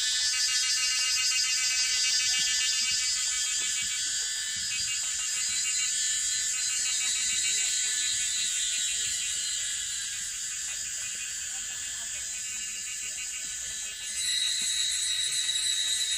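Dense chorus of cicadas buzzing, a loud high-pitched drone with a fast pulsing texture. Near the end a second, steadier high note joins in.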